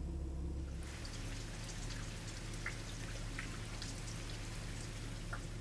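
Rain pattering, with scattered drips, on floodwater. A low steady hum stops about a second in, when the pattering begins.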